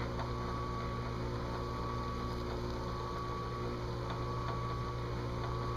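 Delta Shopmaster drill press running with a steady low hum, its chuck holding an abrasive bit for engine-turning a metal dash panel.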